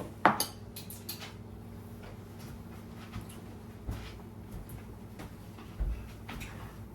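Kitchen clatter while cooking: a sharp click just after the start, then a few faint taps and knocks over a steady low hum.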